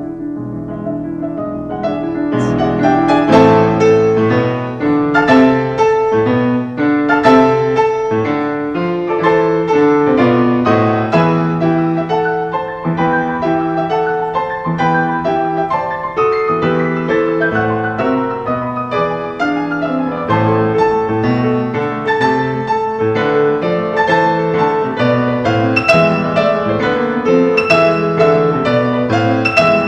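Background piano music, a melody of struck notes over chords, filling out about two seconds in.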